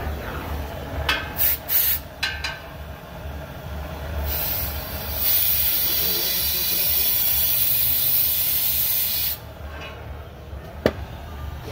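Gas hissing from an oxy-fuel torch as it is readied for lighting: a few short hisses, then a steady hiss lasting about five seconds that cuts off suddenly. A single sharp click follows near the end.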